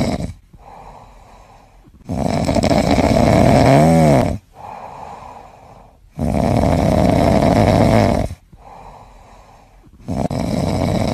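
A kitten snoring in its sleep: loud snoring breaths of about two seconds each, coming roughly every four seconds, with softer breaths between. The middle snore carries a brief whistling tone that bends up and back down.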